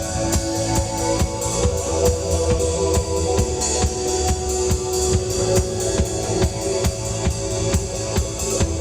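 A reggae band playing live during a sound check: a drum kit keeps a steady beat of kick and snare strokes over bass and held notes.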